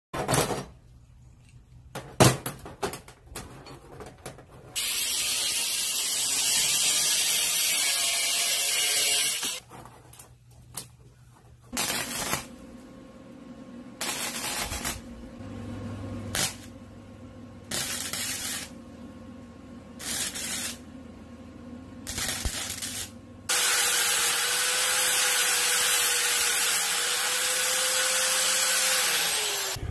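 Metal parts and bicycle chain clicking and clinking on a steel bench, then a loud steady metal-working rasp lasting about five seconds. Next come five short bursts of MIG welding a few seconds apart, and last about six seconds of angle grinding on steel, the grinder's whine falling as it spins down at the end.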